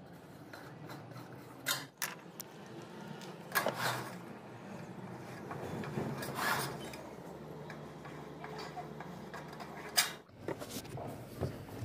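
Felt-tip marker rubbing across thin sheet-metal flashing as lines are drawn on it, with a few sharp clicks and taps from the metal sheet being handled. The loudest click comes near the end.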